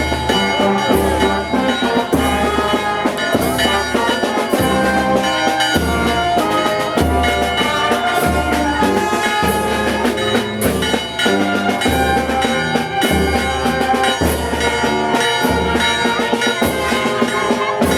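Brass band playing a slow processional march, with trumpets and trombones over a low beat that comes about once a second.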